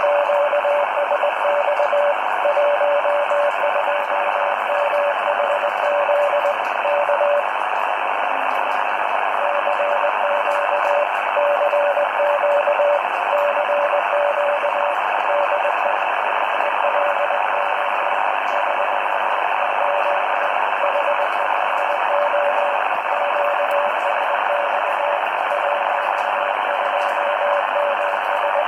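Morse code (CW) signal on an ATS-20 shortwave receiver in USB mode: a steady tone of about 600 Hz keyed on and off in dots and dashes over constant static hiss. The keying pauses for about two seconds roughly a quarter of the way in.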